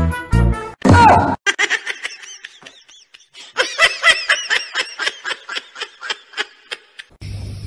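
High-pitched giggling laughter in quick, rapid bursts, in two runs, after the tail of beat-driven background music in the first second.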